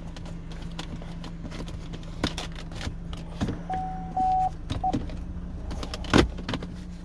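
Hands working the fabric shift boot back up around a car's gear shifter: scattered small clicks and rustles, with one sharp knock about six seconds in. A short electronic beep, then a brief second one, comes about midway, over a steady low hum.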